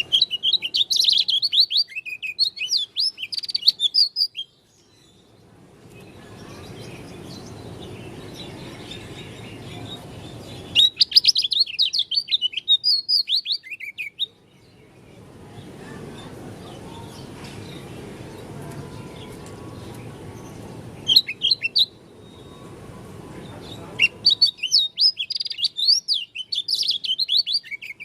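A pleci dakun white-eye singing in fast, high, twittering phrases: a burst of about four seconds at the start, another of about three seconds near the middle, a short one, then a longer one near the end. A steady low rumble fills the gaps between phrases.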